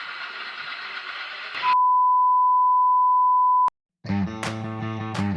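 A steady hiss, then a loud single-pitch beep lasting about two seconds that cuts off with a click. After a brief silence, guitar music starts.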